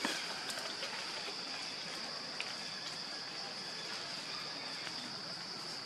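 Steady high-pitched insect drone, such as cicadas, over a constant background hiss, with a few faint clicks in the first half-second.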